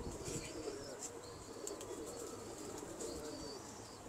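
Domestic pigeons cooing steadily, with faint, short high chirps here and there.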